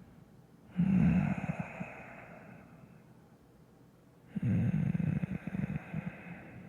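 A man's close-up, rough breaths out, like heavy sighs, twice: one about a second in and one a few seconds later, each fading away slowly.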